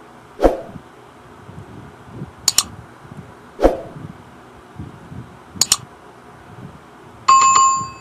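Sound effects of a Subscribe-button animation: two soft pops, two quick double clicks like a mouse click, then a bright notification-bell ding near the end.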